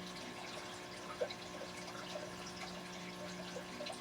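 Faint, scattered small clicks and ticks of a strand of glass pearls being handled, over a steady low hum.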